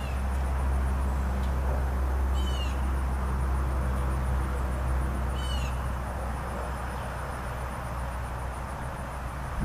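Wind buffeting the microphone with a steady low rumble over a rushing hiss, and a bird giving a short call twice, about two and five seconds in.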